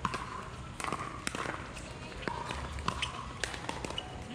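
Pickleball rally: a string of sharp pops from paddles striking the hollow plastic ball and the ball bouncing on the hard court, coming irregularly about once every half second to a second.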